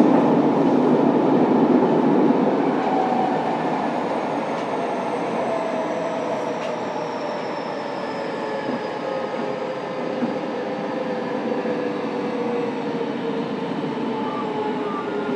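Fukuoka City Subway 2000N series train with a Hitachi SiC VVVF inverter, heard from inside the car as it slows. The wheel and running noise eases, and the motor and inverter tones slide steadily down in pitch under braking.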